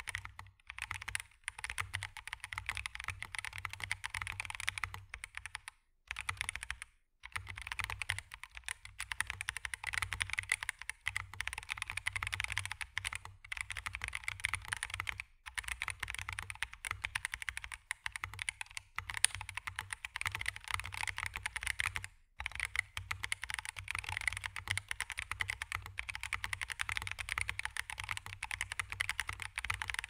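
Typing on an OG60 retro mechanical keyboard with stock Boba U4T tactile switches, Clear 2048 keycaps and a gasket-mounted polycarbonate plate with case and plate foam: a steady run of key presses with a few brief pauses.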